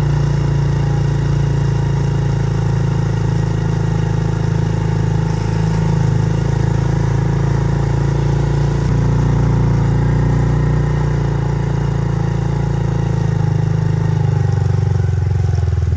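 Small vehicle's engine running steadily at low revs while driving slowly, with slight changes in pitch.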